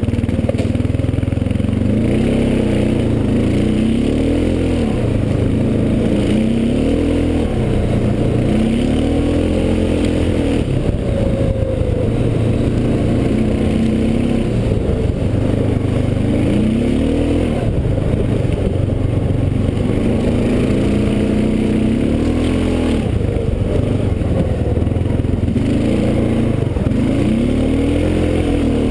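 Honda 500 ATV's single-cylinder engine running as the quad is ridden, its pitch rising and falling again and again as the throttle is opened and eased off.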